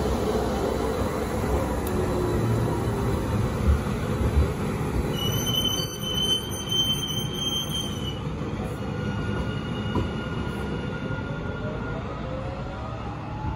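AnsaldoBreda P2550 light rail train pulling away from the platform, its rumble slowly fading as it leaves. In the middle, a high wheel squeal holds steady for about three seconds.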